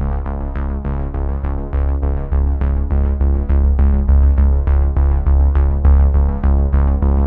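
Background electronic music with a steady beat and sustained synthesizer chords.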